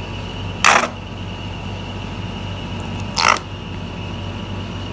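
Tomato sauce squirted from a bottle into a bowl: two short sputtering squirts about two and a half seconds apart, over a steady background hum.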